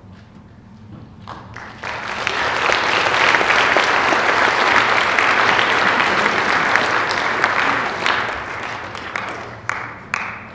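Audience applauding: the clapping builds over about a second, holds steady for several seconds, then dies away, with a few scattered claps near the end.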